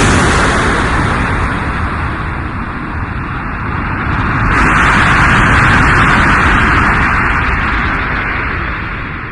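Military fighter jet roaring overhead: a loud rush of engine noise that eases, swells again about four or five seconds in, then fades away.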